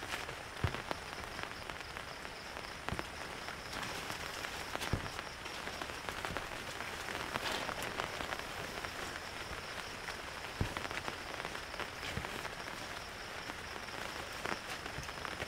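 Heavy rain falling steadily, with a few sharper drop hits standing out now and then.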